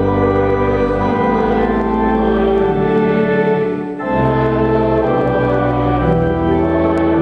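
Church organ playing sustained chords, with a short break between two phrases about four seconds in.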